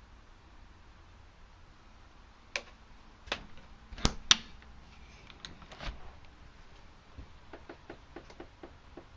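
RV refrigerator doors being shut and opened: a few sharp knocks and clicks as the fridge door closes and latches, the loudest pair about four seconds in, then a run of lighter ticks as the freezer door is opened.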